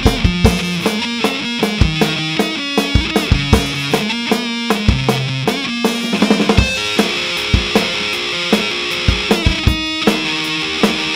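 Heavy fuzz-distorted electric guitar riff with a drum kit: a Dean Razorback ML through a Vick Audio '73 Ram's Head fuzz pedal and a Marshall JCM 800 combo amp. About two thirds of the way through, the riff moves to higher, longer-held chords.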